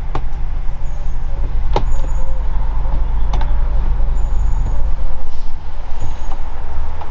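Widebeam canal boat's diesel engine running steadily under way, a loud low throbbing rumble, with a few faint high bird chirps above it.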